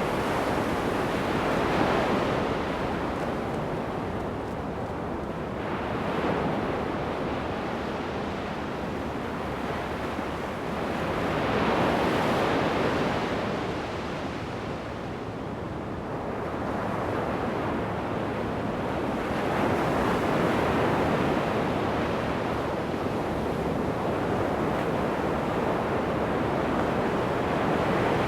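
Ocean surf breaking and washing up a sandy beach, rising and falling in slow surges every several seconds, with some wind on the microphone.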